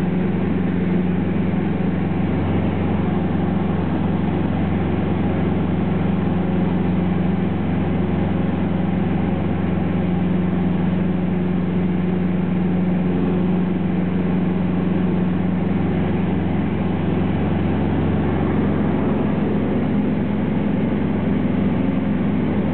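Light high-wing aircraft's engine droning steadily in flight, heard from inside the cabin.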